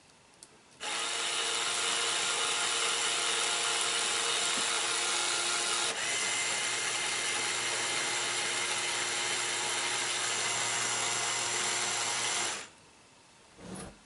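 Small Lego motor, adapted to run from a micro:bit, whirring steadily as it drives the plastic gears that turn the two Lego birds. It starts about a second in, hitches briefly about halfway with a slight change in tone, and stops about a second and a half before the end.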